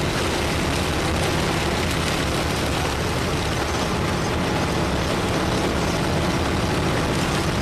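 A 1947 Ford's engine running, with steady road and wind noise heard from inside the car as it drives.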